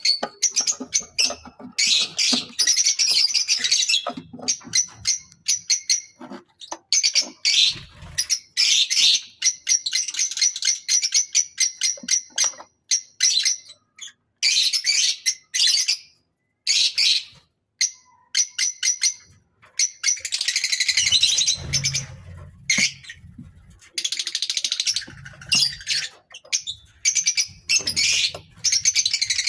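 A colony of lovebirds chattering, with runs of shrill, rapid chirps and squawks broken by short pauses.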